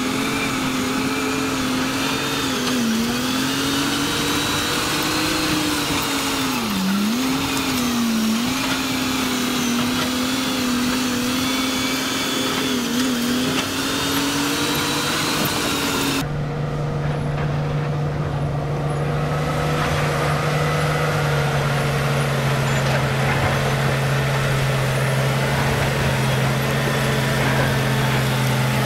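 Crawler bulldozer's diesel engine working under load, its pitch sagging briefly several times as it pushes earth and rock. About halfway through the sound changes suddenly to a steadier, lower engine note.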